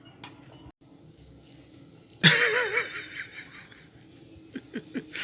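A man lets out one loud, breathy exhale with a wavering voiced sound about two seconds in, fading over about a second: a reaction to the burning heat of the raw garlic drink. A few small clicks follow near the end.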